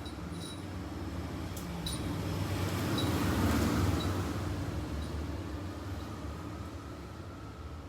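A vehicle passing by: a low rumble that swells to its loudest about three and a half seconds in, then slowly fades. A few faint high ticks sound in the first two seconds.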